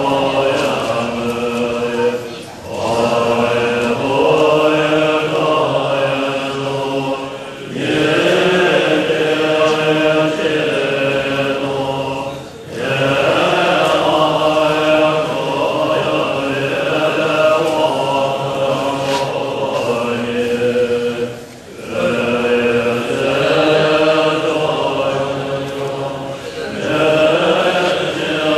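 Tibetan Buddhist monks chanting a ritual recitation together, in long sung phrases broken by brief pauses for breath every few seconds.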